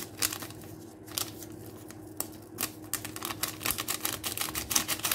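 Paper baking-powder sachet crinkling and being tapped as the powder is shaken out into the bowl: a run of small irregular clicks and ticks, thickest in the second half.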